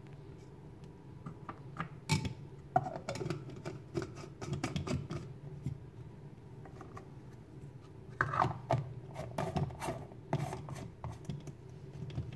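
Handling sounds of a portable USB fruit blender: irregular clicks, taps and scrapes as mandarin segments go into the plastic jar and the plastic lid is fitted and screwed on. The motor is not running.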